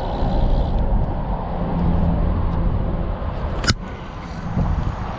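Steady low rushing of river water around a wading angler, with one sharp click about three and a half seconds in.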